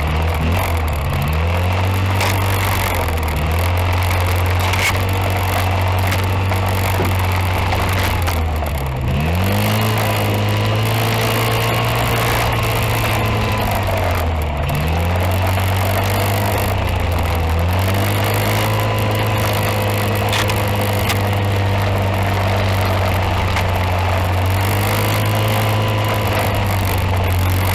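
Engine running continuously, its speed dropping and picking up again several times.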